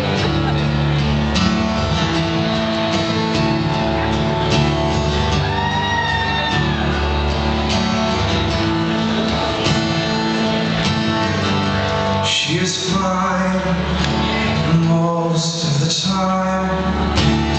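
Live acoustic guitar strumming the intro of a song in a hall, chords ringing steadily, with a man's singing coming in during the last few seconds.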